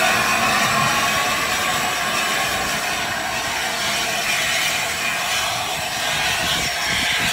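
LNER A4 steam locomotive 60009 Union of South Africa drawing its train slowly along the platform: a steady hiss of steam over the rolling of the carriages, easing off slightly near the end.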